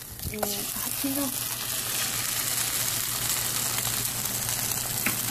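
Cut-up corn tortillas frying in oil in a pan, sizzling steadily, with a few light clicks.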